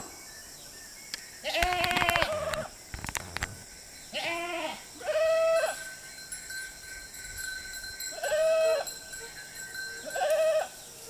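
Goats bleating: about five separate calls, each roughly half a second long, with short pauses between them. The first call quavers.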